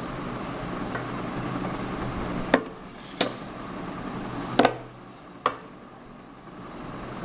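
Plastic-bodied Takada waffle maker being handled and set down on a marble tabletop: four sharp knocks and clacks over a steady background hum.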